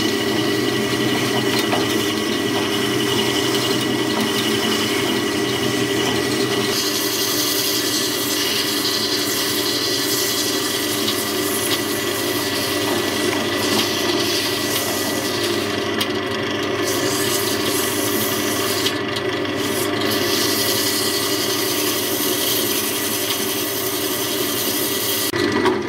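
Sandpaper held by hand rubbing against a silverberry wood goblet spinning on a wood lathe: a steady hiss of sanding over the lathe's even running hum. The high part of the hiss eases off briefly twice in the second half.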